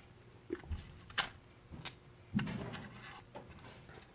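Scattered sharp clicks and a few soft knocks of a hard-plastic RC car and its battery pack being handled as the battery is taken out and looked at.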